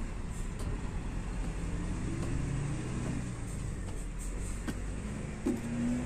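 Large diesel engine of heavy mining equipment running steadily with a low drone, with a faint tone that wavers up and down about halfway through.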